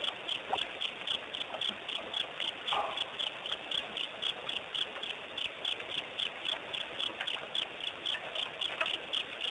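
Crickets chirping at night in a steady, even rhythm of about four high chirps a second.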